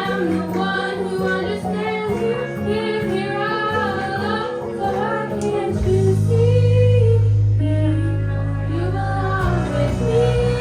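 A female voice sings a melody over a backing track with a steady bass line.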